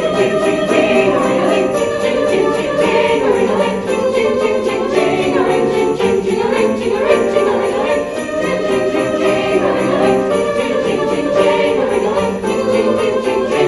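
Live Christmas music with sleigh bells jingling in a quick, steady rhythm over sustained pitched chords.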